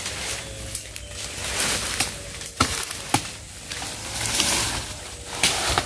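Footsteps crunching through dry leaf litter and twigs, with brush rustling and a few sharp snaps of twigs at irregular intervals.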